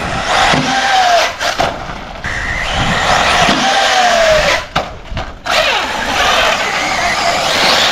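Arrma Typhon 6S RC buggy's brushless electric motor whining as it is driven hard and launched off a ramp, the whine falling in pitch twice. It lands with a couple of sharp knocks about five seconds in.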